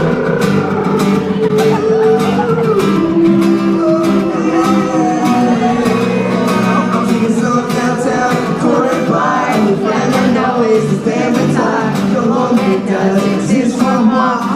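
Acoustic guitar strummed in a steady rhythm as a live song begins, with some singing over it.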